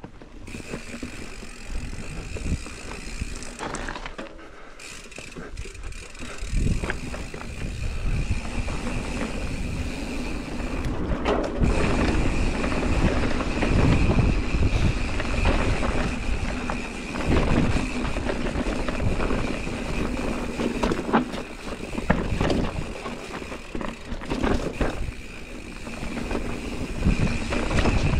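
Mountain bike riding fast down a dirt singletrack: tyres rumbling over dirt, roots and rocks with many small knocks and rattles from the bike, under a steady high whine. It grows louder about six seconds in.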